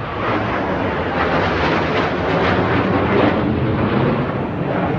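Jet noise from the Blue Angels' formation of six F/A-18 Hornets flying over low, swelling to its loudest in the middle and easing slightly near the end.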